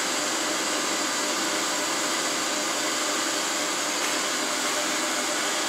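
Steady whirring hiss of running machinery with a few faint steady hum tones, even and unbroken, with no knocks or squeals.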